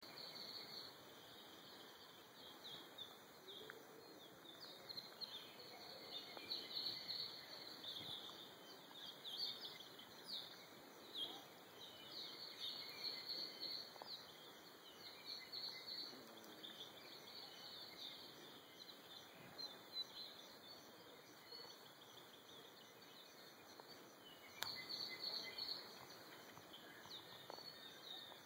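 Several birds singing in a Hawaiian rain forest: a faint, continuous chorus of short high chirps and trills, busier for a stretch in the middle and again near the end, over a soft background hiss.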